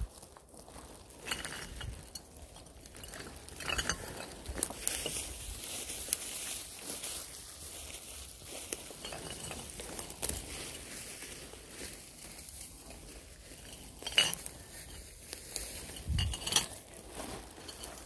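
Footsteps through dry pine needles and twigs on the forest floor, with a plastic rubbish bag rustling and scattered short clicks and crackles.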